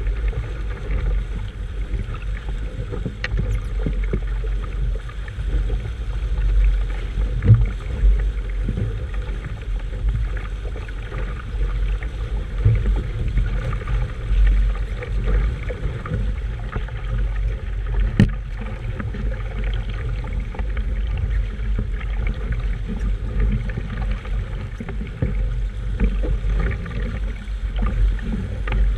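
Wind buffeting the microphone with a heavy, uneven rumble, and water noise around a sailing boat under way. A few sharp knocks, the clearest about two-thirds of the way in.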